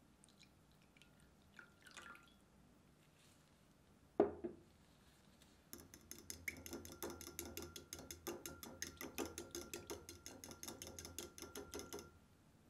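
Milk poured into a glass bowl, then a single sharp knock about four seconds in. A fork then whisks the liquid, clicking rapidly against the sides of the glass bowl for about six seconds before stopping near the end.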